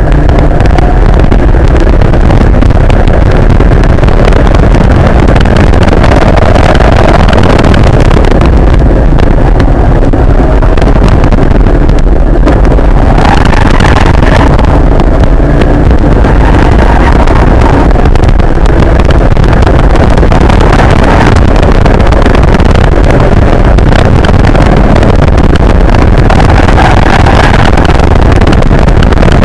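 Nissan 240SX's KA24DE 2.4-litre four-cylinder engine running hard on track, heard from inside the cabin. It is very loud throughout, its pitch rising and falling with the revs several times.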